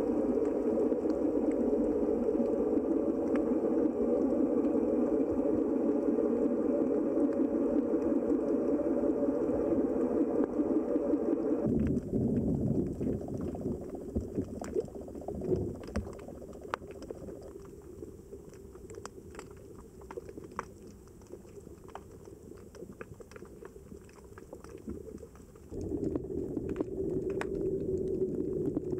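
Water noise recorded underwater: a dense low rush, which changes suddenly about twelve seconds in to a quieter wash with many scattered sharp clicks, then returns a few seconds before the end.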